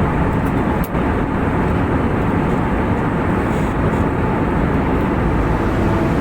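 Steady in-flight cabin noise of an airliner, a dense even rush concentrated in the low and middle range, with one brief click a little under a second in.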